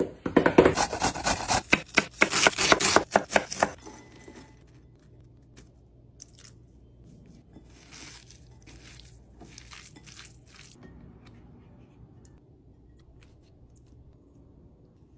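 Kitchen knife rapidly chopping vegetables on a wooden cutting board for about four seconds, then quieter scattered squishing and rubbing as shredded cabbage, carrot and tofu are mixed by hand in a bowl.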